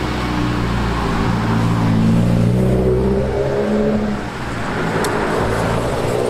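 An engine running with a steady low hum that rises a little in pitch, then fades about four seconds in.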